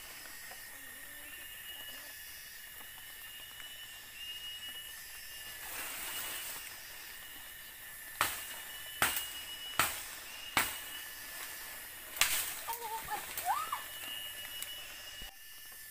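Forest ambience: a steady high-pitched insect drone with short repeated chirps. Through the middle comes a run of sharp knocks or snaps, about one a second, and near the end a short rising and falling call.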